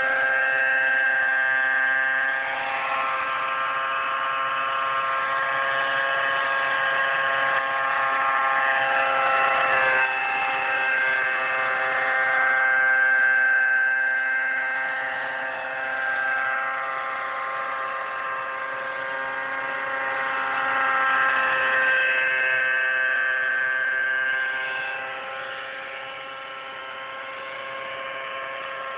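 Align T-Rex 600 nitro radio-controlled helicopter in flight, its glow engine and rotor running with a steady high whine. The pitch bends up and down and the sound swells and fades as the helicopter passes and turns, growing fainter near the end as it moves away.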